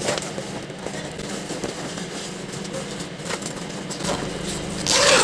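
Zipper and fabric of a waterproof bag being handled: small clicks and rustles over a steady low hum, with a louder noisy burst near the end.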